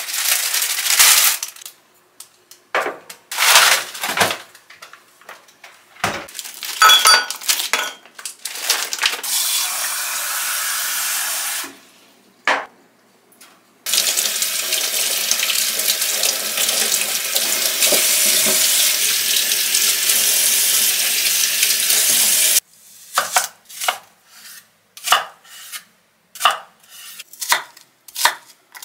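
Clatter and knocks of kitchen things, then a kitchen tap running in a steady stream over an onion being rinsed, cut off suddenly. A kitchen knife then chops the onion on a wooden cutting board, about two strokes a second.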